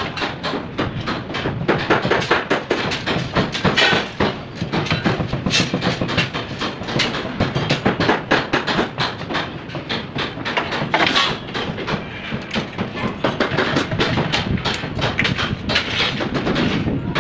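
Construction site work noise: a busy, irregular clatter of knocks and bangs.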